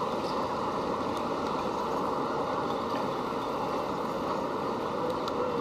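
Steady rushing outdoor background noise with no distinct events standing out.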